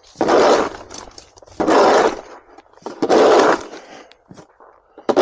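Snow shovel scraping through hard, icy snow in three strokes about a second and a half apart, with a fourth starting at the end.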